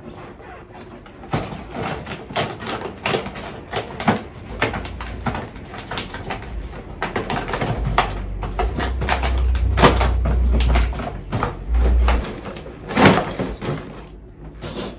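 Paper crinkling and rustling in quick, irregular crackles as ornaments are wrapped up in it, with knocks of handling and a low rumble for a few seconds in the middle.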